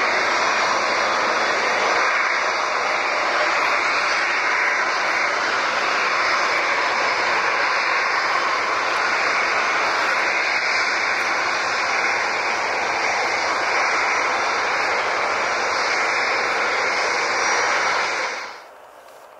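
Engines of a large jet airliner making a steady, even rush of noise that cuts off abruptly near the end.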